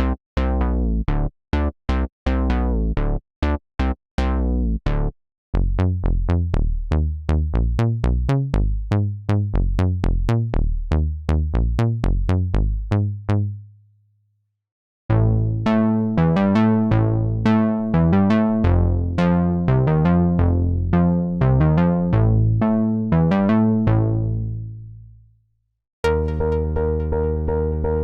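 u-he Repro-1 software synthesizer, an analog-modelled monosynth, playing sequenced bass and arpeggio patterns of short plucky notes at about four notes a second. The patch changes three times, with brief silences between patterns about 5, 14 and 26 seconds in.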